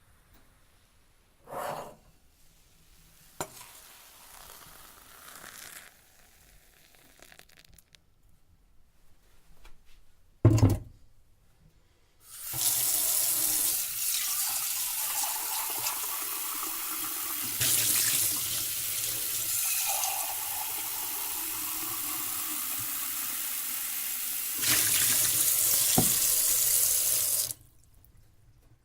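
A few light knocks and one sharp thump, then a kitchen water tap turned on and running steadily for about fifteen seconds, growing louder twice, before it is shut off abruptly.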